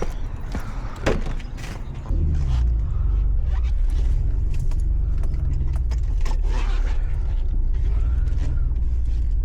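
Metal creaking and clicking from a trailer jack and hitch being worked, then about two seconds in a loud, steady low rumble starts and keeps going.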